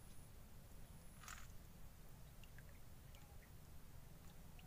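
Near silence: a faint low rumble, with one short soft noise about a second in and a few faint high chirps.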